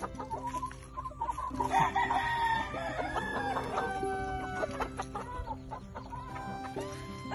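Roosters crowing and clucking in their pens, several crows following one after another in the first half.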